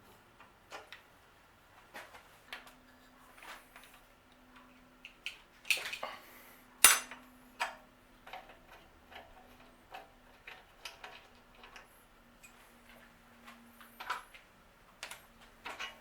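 Irregular metallic clicks and clinks of hand tools and bicycle parts being handled as components are removed from a bike, with one loud sharp clack about seven seconds in.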